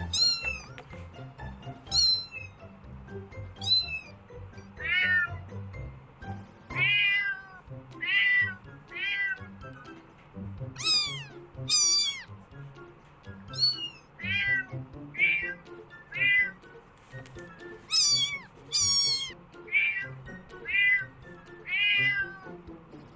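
Kitten meowing repeatedly in short, high-pitched calls that fall in pitch, about one a second, with background music underneath.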